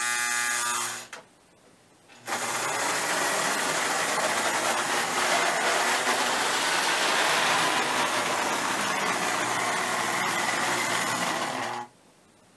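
A buzzing tone for about a second, then, from about two seconds in, a Lionel Santa Fe GP20 O-gauge model diesel locomotive running on three-rail track: a steady whir of its electric motor and wheels rolling on the steel rails, which cuts off abruptly near the end.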